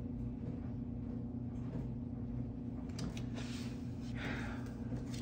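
Quiet room tone with a steady low hum, and a few faint soft rustles about three and four seconds in.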